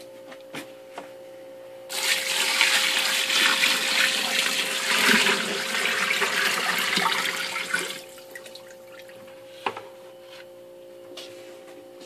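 Bucket of water being poured into the tub of an antique Automatic Electric Washer Co. washing machine, splashing onto the rags inside. The pour starts about two seconds in and runs for about six seconds.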